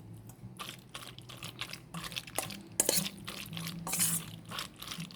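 A utensil stirring and scraping food in a pot, in quick irregular strokes that grow louder about three seconds in.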